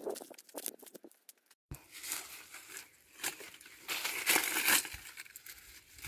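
Irregular dry crinkling and rustling as dry material is handled by hand, in uneven bursts with the loudest about four seconds in; the sound drops out briefly just before two seconds in.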